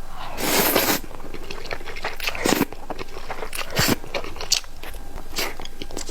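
A person biting and chewing crunchy food close to the microphone: one long crunch about half a second in, then a few shorter crunches with soft chewing clicks between them.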